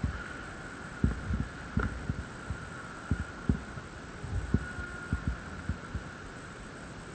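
Dull low thumps at irregular intervals, about one or two a second, from a body-worn camera being jostled as the player moves. A faint steady hum runs underneath.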